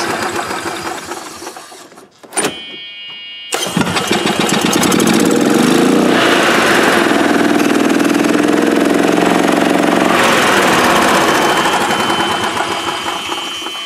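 2003 Club Car DS golf cart's single-cylinder gas engine winding down, then starting suddenly about three and a half seconds in and running up under the pedal in reverse before easing off near the end, with a steady high reverse-warning beep over it. The cart starts and moves on the first press of the pedal: the no-start fault is cured by the new microswitches.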